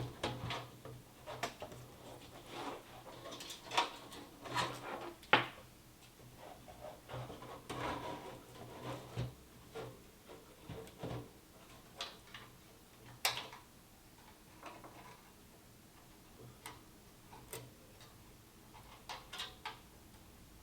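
Irregular clicks and light knocks of computer parts being handled and fitted together, a few sharper snaps among them, over a low steady hum.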